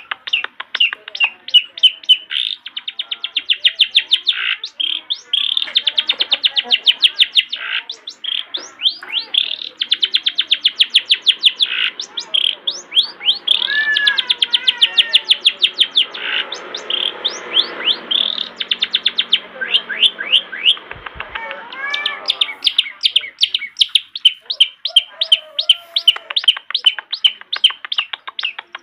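Long-tailed shrike (cendet) singing a loud, fast chattering song: rapid runs of sharp, high repeated notes, with a stretch of lower, more varied warbling phrases in the middle.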